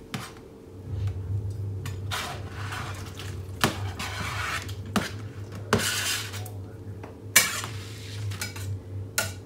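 Chopped ham being scraped off a plastic cutting board into the Instant Pot's inner pot with a knife, making short scraping sounds and several sharp knocks of metal on the pot, over a steady low hum.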